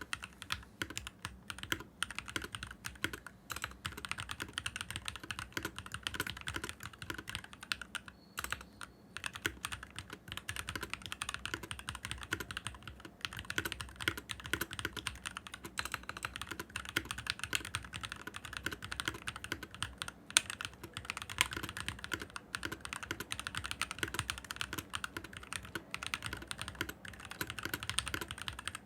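NovelKeys NK65 Olivia Edition 65% mechanical keyboard in stock, unmodified form, being typed on fast and continuously: a dense clatter of keystrokes, with a brief pause about eight seconds in.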